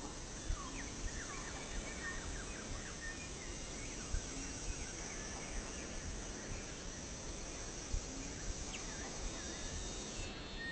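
Forest ambience: a steady high insect drone with scattered short bird chirps. The insect drone cuts off shortly before the end.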